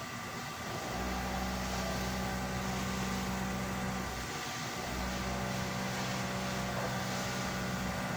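Steady low mechanical hum that starts about a second in, cuts out briefly a little past four seconds, then resumes.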